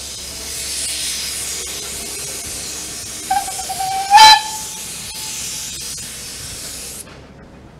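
Narrow-gauge steam locomotive hissing steam steadily, with a short whistle toot about three seconds in that ends in a brief loud blast about a second later. The hiss cuts off suddenly near the end.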